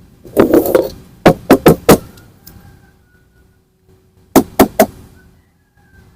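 Plastic toy guns clicking and snapping as they are handled: a short scuffle, then four quick sharp snaps, and about two seconds later three more.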